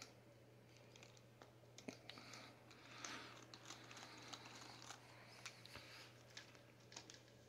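Faint, irregular small clicks and taps of plastic as a hand nut driver works the wheel nut on an RC crawler's plastic wheel hub, over a steady low hum.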